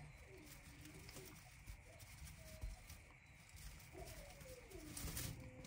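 Faint animal whining: a few short calls that glide up and down in pitch, over low rumbling handling noise.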